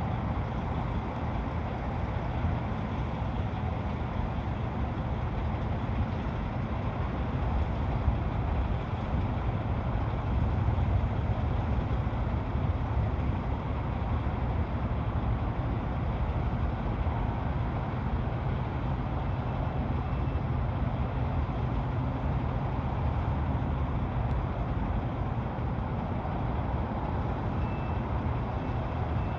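Steady low rumble of distant engines, even throughout with no build-up or fade.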